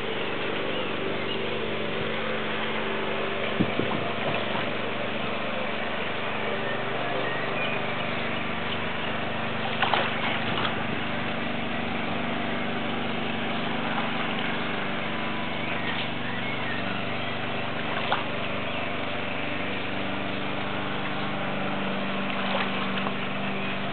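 Steady low hum and hiss, with a few brief light water splashes from a slow-swimming person in a pool, the clearest about ten seconds in.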